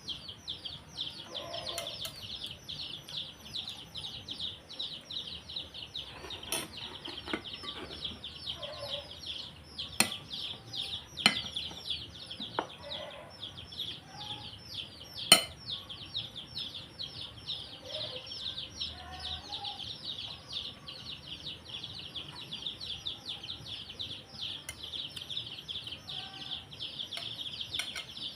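Constant fast, high chirping from the surroundings, with faint chicken clucks, and a few sharp clinks of a spoon against a plate, the loudest about fifteen seconds in.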